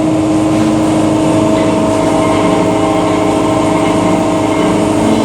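A steady machine drone holding one constant pitch.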